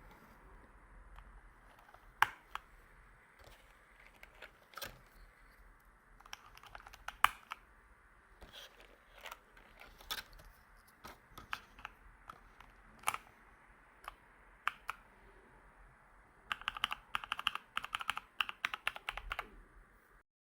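Keys and keycaps of a Keychron K2 mechanical keyboard being handled: scattered sharp clicks, then a quick run of clicks lasting about three seconds near the end.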